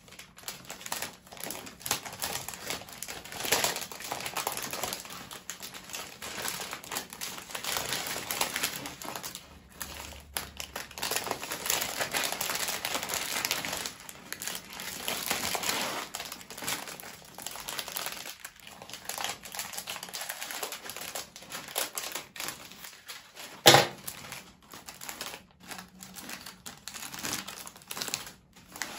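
Florist's cellophane wrapping film crinkling and crackling as it is handled and wrapped around a floral-foam arrangement, with one sharp knock about three-quarters of the way through.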